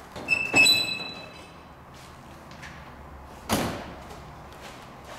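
The steel door of a 1950 Buick Super convertible shut with one thud about three and a half seconds in. Near the start come two sharp metallic clicks that ring briefly.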